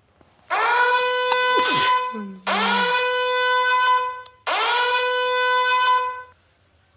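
Three long blasts of a horn-like wind tone, each scooping up in pitch and then holding one steady note.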